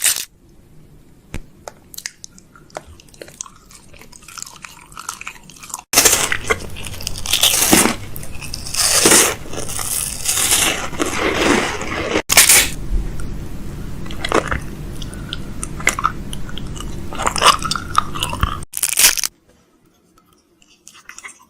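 Close-up handling noise of food packaging during fridge restocking: crinkling, crunching and rustling. It starts with a few scattered light clicks, turns loud and dense about six seconds in across a couple of abrupt cuts, and stops suddenly near the end.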